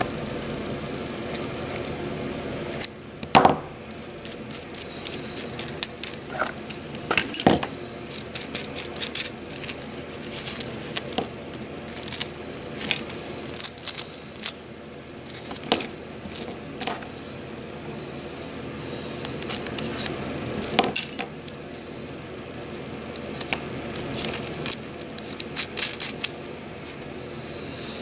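Irregular light metallic clicks and taps, dozens of them in clusters, from hand soldering: a soldering iron's chisel tip tapping and scraping across a circuit board while cleaning solder from it.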